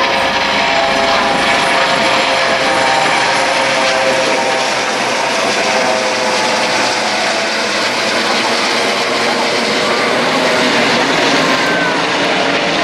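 Formation of AS365 Dauphin helicopters flying low overhead: a loud, steady rotor and turbine drone with a whine that fades about halfway through as they move away.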